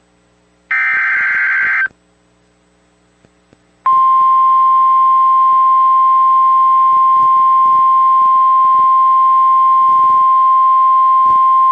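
NOAA Weather Radio emergency alert signal: a short screechy burst of SAME digital header data about a second in, a pause, then the steady single-pitch 1050 Hz warning alarm tone held for about nine seconds, announcing a new warning broadcast.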